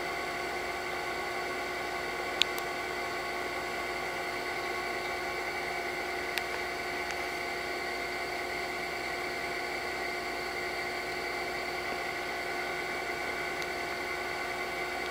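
Steady whining hum with hiss, carrying several steady tones, with one sharp click about two and a half seconds in.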